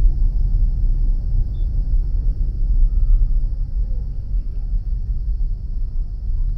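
Steady low rumble of a car moving slowly, heard from inside the cabin, with a faint steady high hiss.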